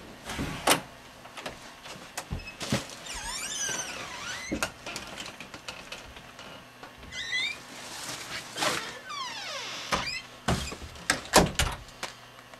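Hinged wooden doors creaking and knocking: scattered knocks and thuds, with squeaky creaks that slide down in pitch about three seconds in and again around seven to nine seconds.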